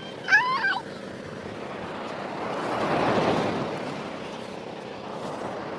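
A vehicle passing by, its noise swelling to a peak midway and then fading. There is a brief, high, warbling squeal about half a second in.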